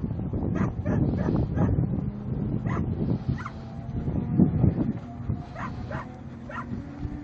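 A dog barking in short, sharp barks: a quick run in the first few seconds, then a few more later on, over a low rumble.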